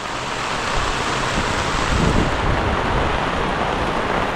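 Torrential rain falling steadily on a tent, an even, heavy hiss, with a brief low rumble about two seconds in.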